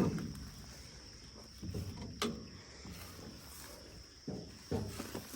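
Insects trilling steadily in the background, with a sharp click about two seconds in and a couple of dull knocks near the end.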